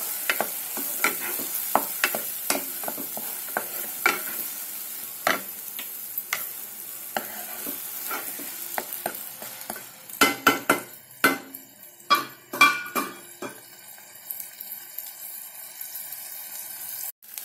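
Onion and ginger-garlic paste sizzling in hot oil in a non-stick kadhai, being sautéed toward golden brown. A wooden spoon stirs it, scraping and tapping against the pan, with a run of louder strokes a little past halfway; after that only the steady sizzle remains.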